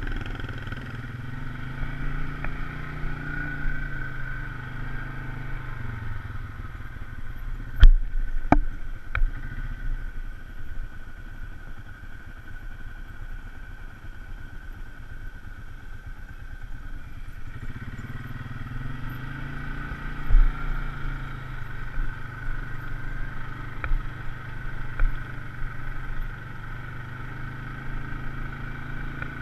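Polaris RZR side-by-side's engine running on the move, its revs rising and falling, softer through the middle stretch. A few sharp knocks cut through, the loudest about eight seconds in and again around twenty seconds.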